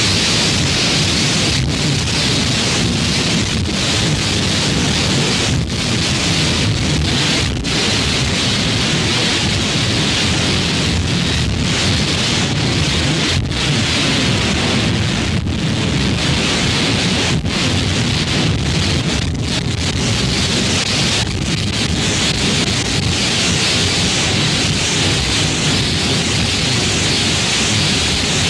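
Loud, dense, steady wash of noise filling the whole range, broken by brief dropouts every couple of seconds.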